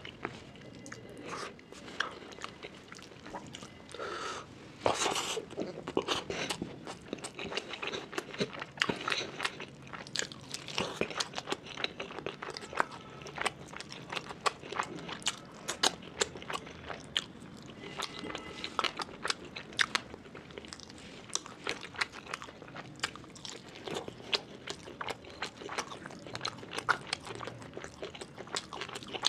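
Close-miked mouth sounds of eating rice and fish curry by hand: steady chewing with many sharp, wet clicks and smacks from the lips and mouth, and a louder burst about five seconds in.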